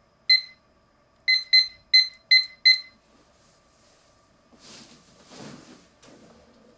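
Six short, identical electronic beeps: one, then about a second later five more in quick succession. A soft rustling noise follows in the second half.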